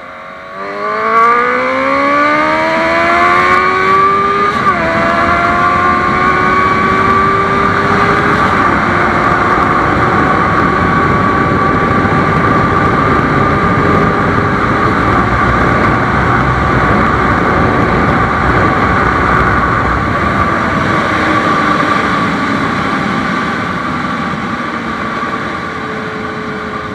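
Honda CB650F's inline-four engine pulling hard, its revs climbing in a rising whine, dropping sharply at two upshifts, then holding steady at cruising speed and easing off slightly near the end.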